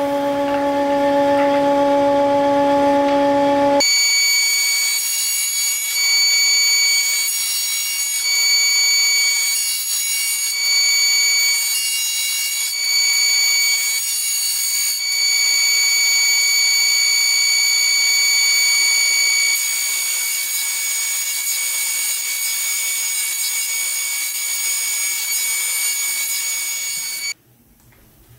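Thickness planer running with a steady high-pitched whine. About four seconds in the sound changes abruptly from a lower hum to a higher whine, and it cuts off suddenly near the end.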